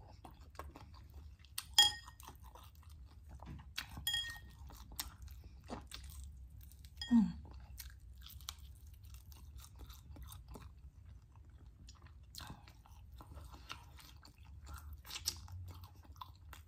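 Close-up chewing and crunching of fried chicken wings, with scattered small crunches and mouth noises, two sharp clicks about two and four seconds in, and a short hum about seven seconds in.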